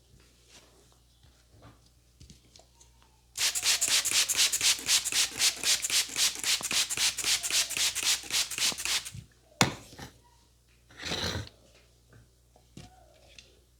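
A barber's hands rubbing briskly and rhythmically in a head massage, about five strokes a second, starting a few seconds in and lasting about six seconds. A single sharp click and a short rustle follow.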